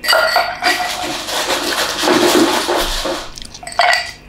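Cola poured into a glass, a fizzing, splashing pour lasting about three seconds.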